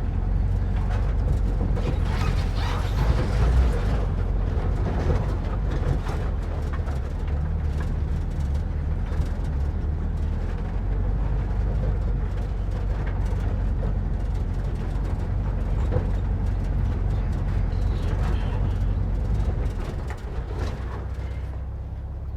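VW split-window bus engine running steadily at low revs while the bus crawls over a rutted dirt trail, with scattered knocks and rattles from the body.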